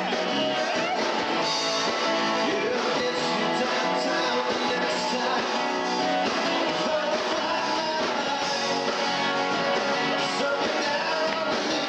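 Rock band playing live, with strummed guitars carrying the song.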